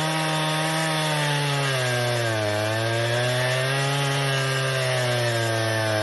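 Husqvarna 365 Special two-stroke chainsaw running under load in a big oak log, its engine pitch sagging and wavering, with a clear drop about two seconds in. The saw has been cutting out in the wood, which the owner puts down to its limited blue ignition coil.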